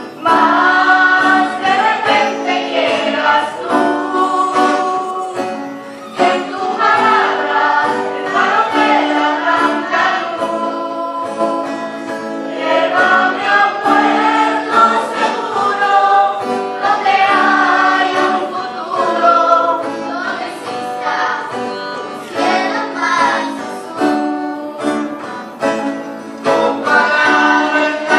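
Church choir singing a worship song in parts over acoustic guitar chords.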